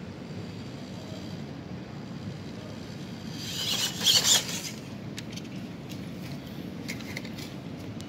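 MN99S RC crawler truck driving, its small electric motor and gears whirring. The sound gets loud for about a second around four seconds in, as the truck comes down off a wooden plank onto tiles right by the microphone, and a few small knocks follow.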